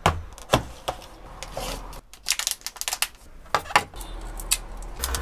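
A series of sharp clicks and taps from small hard parts being handled, with a quick run of clicks about two seconds in.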